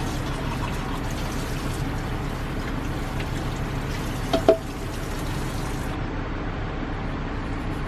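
Tap water running into a kitchen sink while dishes are washed, with two quick clinks of crockery about four and a half seconds in.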